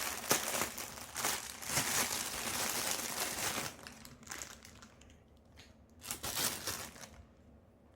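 Packaging being handled and crinkled: continuous crinkling for the first three and a half seconds or so, then a few shorter, separate bursts.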